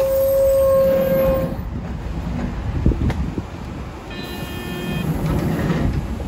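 City bus door signals and door: a steady electronic warning tone for about a second and a half, a knock about three seconds in, a brief higher chime about four seconds in, then the door closing, over the low rumble of the idling bus.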